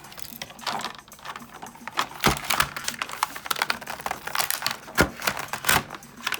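Cheap folding pocket knife, steel blade in a liner-lock frame with a textured ABS handle, being handled and worked: a run of irregular clicks, taps and scrapes, with three sharper knocks a little after two seconds in and twice near the end.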